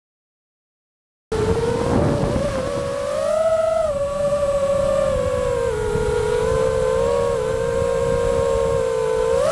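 Electric motor and propeller of an FPV racing wing whining steadily in flight, with wind rushing over the onboard camera. The pitch wavers a little with throttle and climbs sharply right at the end; the first second or so is silent.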